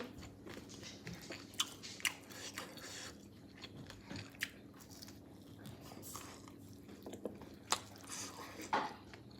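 A person chewing and biting food close to the microphone, with sharp crunchy clicks at irregular intervals.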